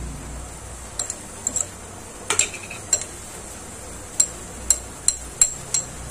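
Metal spoon stirring a thick, chunky mixture in a glass bowl, clinking sharply against the glass about a dozen times at irregular intervals, over a steady low hum.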